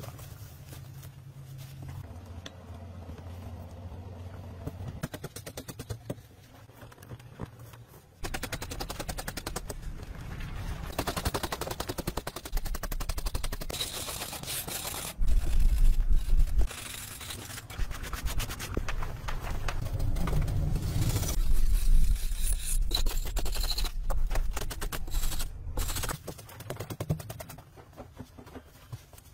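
A metal blade chopping and scraping into a packed clay wall, a dense rapid clatter of strikes and crumbling earth that grows much louder about eight seconds in.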